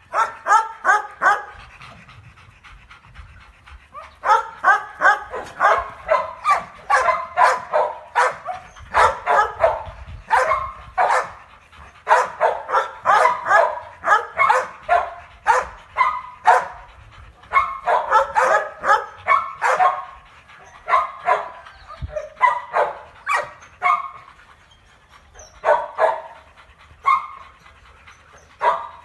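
Dogs barking during rough play: quick runs of short, sharp barks, several a second, broken by brief pauses.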